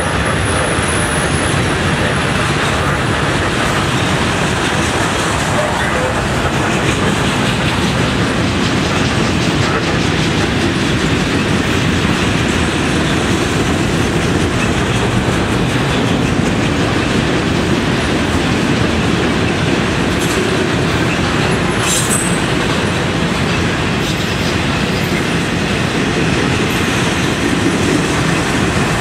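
Freight train cars rolling past at close range: a steady, unbroken rumble of wheels on rail. A single short, sharp knock sounds about three-quarters of the way through.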